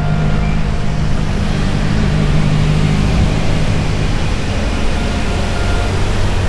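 Motorcycle engine running at a steady pace while riding, with a constant rush of road and wind noise.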